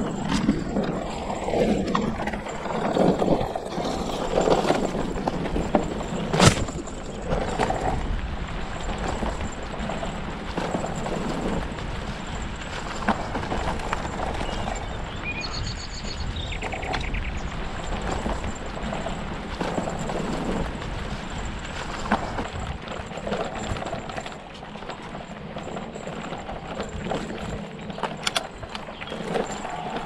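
Hardtail mountain bike rolling fast over a rough dirt forest trail: tyres running on the ground, with the rigid-rear frame and chain clattering and knocking irregularly over roots and bumps, and one sharp knock about six seconds in. A bird chirps briefly about halfway through.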